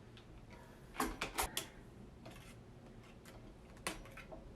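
Steel wire being wound around a mop head: a quick run of four sharp clicks about a second in, a single click near the end, and fainter ticks between.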